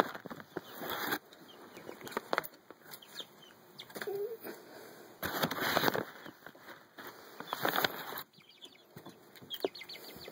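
Chickens scuffling and flapping their wings in short noisy bursts, with scattered sharp clicks and one brief cluck about four seconds in.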